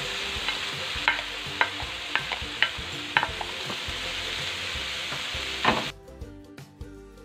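Sliced bitter melon sizzling as it hits hot oil with sautéed tomato and garlic and is stirred, a spatula clicking and scraping against the pan every half second or so. The sizzle cuts off suddenly near the end, leaving quiet background music.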